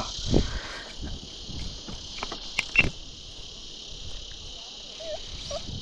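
Steady, high-pitched chorus of insects shrilling, with a few sharp clicks about halfway through.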